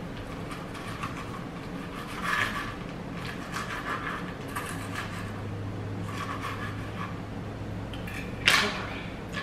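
Knife cutting crispy bacon on a cutting board: irregular scraping strokes of the blade against the board, with one sharp knock about eight and a half seconds in, the loudest sound.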